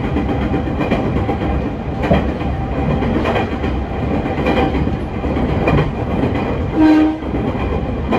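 Joshin Electric Railway electric train running at speed, heard from the driver's cab: a steady rumble with the wheels clicking over rail joints about once every second. About seven seconds in, a short horn blast sounds.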